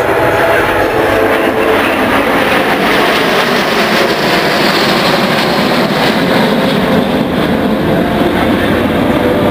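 Jet engines of a seven-ship formation of Aero L-39 Albatros trainers passing close overhead: a loud, continuous roar that is brightest about four seconds in and then drops lower in pitch as the jets move away.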